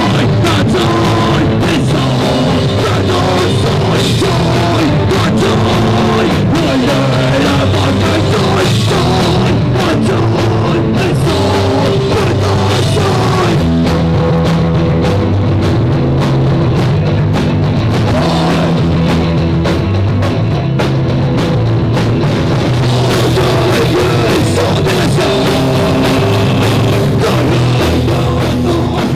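Punk rock band playing live on a drum kit and amplified instruments, loud and continuous, with a change of chord about halfway through.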